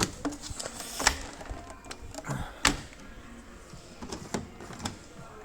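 Faint background music with scattered sharp clicks and knocks, the loudest about a second in and near three seconds in.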